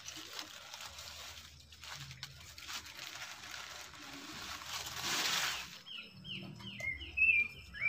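Rubber-gloved hand rubbing and brushing over the bark of a hollow log bee trap, a scratchy rustling that swells about five seconds in. Near the end a bird chirps in a quick run of short falling notes.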